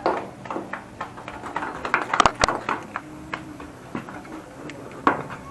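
Steel hex key clicking and scraping against bolts in an aluminium manifold flange on a motorcycle cylinder head. Irregular metal clicks and taps, with two sharp clicks close together about two seconds in.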